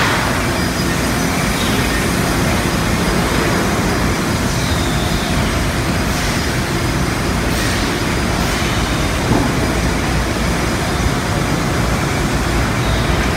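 Steady, loud din of machinery on an auto-parts factory floor.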